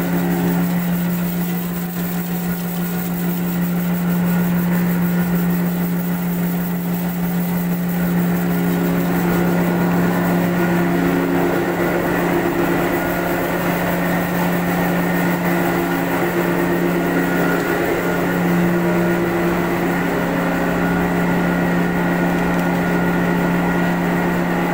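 Electric grain-cleaning and flour-milling machinery running steadily, with a loud, even motor hum and a few steady higher tones over it.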